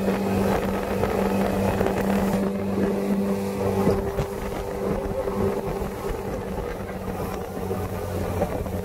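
Small tiller outboard motor running at a steady speed, driving a small open boat across the water.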